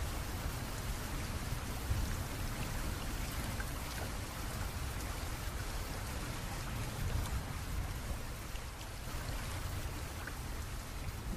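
Steady rain: an even hiss with scattered faint drop ticks over a low rumble.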